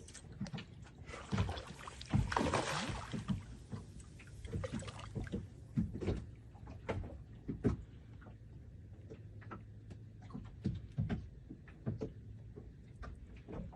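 A small boat on the water: irregular knocks and thumps against the hull with water sloshing, and a louder rush of splashing noise about two seconds in.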